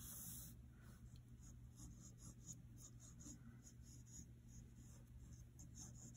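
Faint scratching of a pencil sketching on paper in a run of short strokes, the longest in the first half second.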